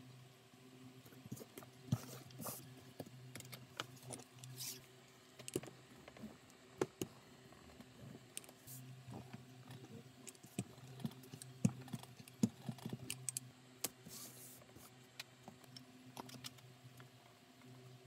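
Light handling of a woven plastic bag strap on a cutting mat: scattered small taps, clicks and brief rubbing sounds as it is smoothed and pressed along its length, over a steady low electrical hum.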